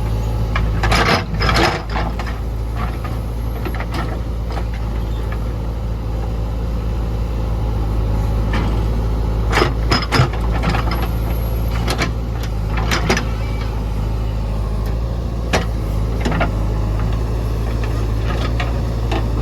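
Heavy diesel engine running steadily, with occasional sharp clanks and knocks from machinery.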